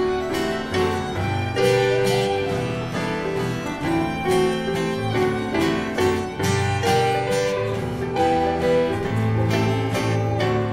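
A violin playing a melody of held and changing notes over acoustic guitar accompaniment.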